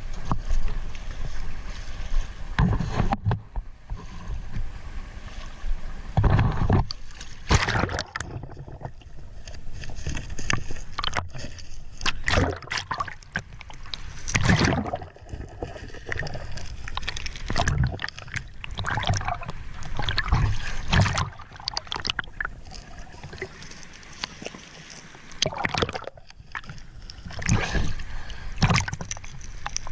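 Water sloshing and splashing around a small boat, coming in irregular surges.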